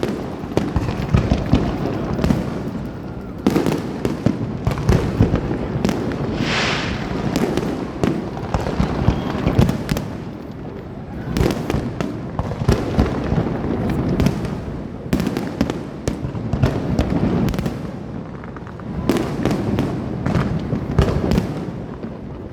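Fireworks display: a continuous run of sharp bangs and crackling bursts, with a hissing shell about six seconds in.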